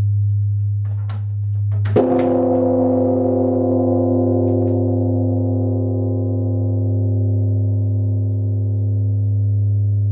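Large Korean Buddhist temple bell (beomjong) struck once with a swinging wooden log striker about two seconds in, then ringing on with several overtones over a deep, steady hum that carries through from the bell's earlier stroke.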